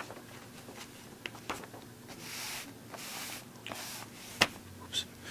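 Newspaper pages rustling and crinkling as they are handled, with several sharp clicks. The loudest click comes about four and a half seconds in.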